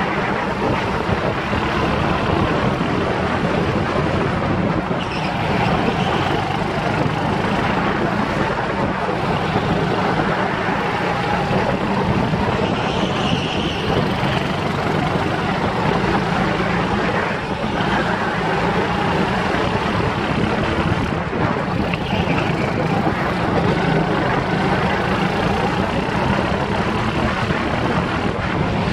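Go-kart engine running as the kart laps the track, heard onboard close to the engine: a steady, dense engine noise with little change in pitch.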